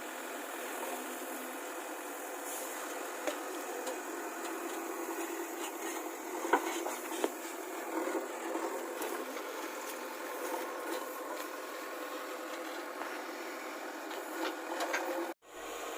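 JCB backhoe loader's engine running steadily, with a few light knocks, cutting off abruptly near the end.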